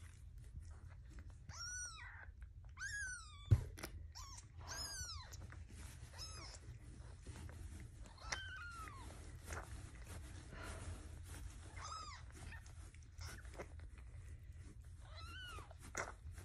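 Newborn kittens mewing: about seven short, high-pitched cries that rise and fall, spread through, over soft rustling as they are rubbed with a cloth. A sharp knock about three and a half seconds in is the loudest sound.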